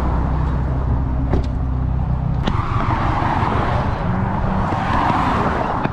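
Car engine running with a steady low rumble, then the noise of traffic passing on the road swelling and fading through the second half.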